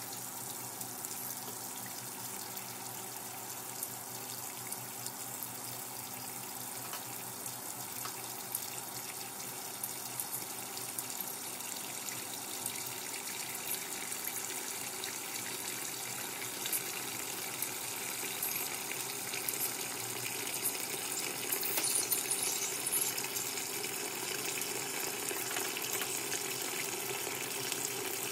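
Water running steadily in the tub of a Giantex EP23113GB top-loading washing machine, a little louder in the last few seconds.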